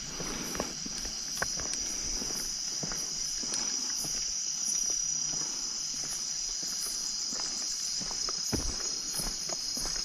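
A steady, high insect trill, with a second insect pulsing above it about once a second and a few soft footsteps.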